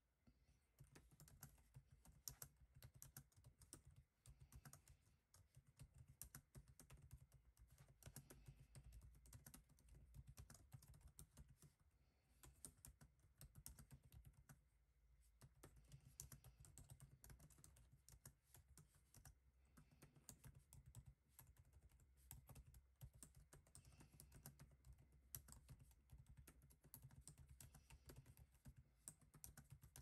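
Faint, continuous typing on a computer keyboard, a quick run of key clicks with a short pause about halfway through.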